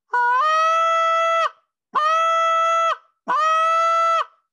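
Short reed goose call blown in three long moans. Each starts on a low note, quickly breaks up to a higher steady note held for about a second, and dips in pitch as it ends. The break up is the moan's second stage, reached by raising the air pressure.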